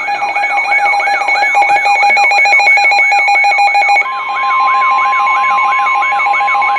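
Electronic emergency alert tones that announce a new weather warning. Two pulsing beeps sound together with a whooping sweep that repeats about three times a second. About four seconds in, a steady single tone joins them: the weather radio's 1050 Hz warning alarm.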